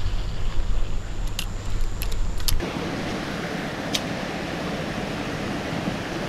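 Wind buffeting the microphone, with a few sharp clicks. About two and a half seconds in it gives way abruptly to a steady rushing hiss of flowing stream water, with one more click a little later.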